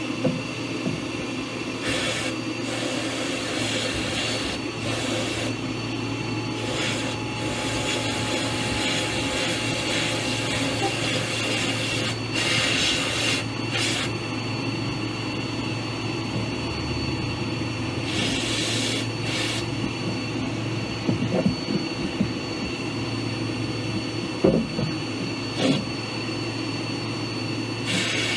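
Electric power tool motor running steadily, with several louder hissing stretches and a few sharp knocks.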